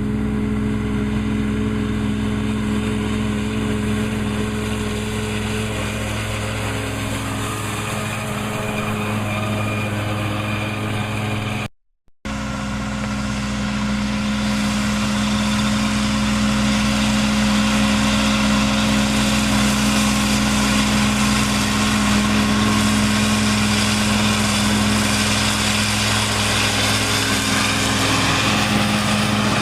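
Massey Ferguson 2600-series tractor engine running steadily under load while cutting hay, with the whir of the disc mower. The sound breaks off for a moment about twelve seconds in, then the same steady running carries on.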